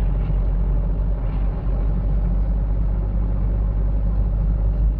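Mahindra Bolero's diesel engine and road noise heard from inside the cabin while driving, a steady low rumble.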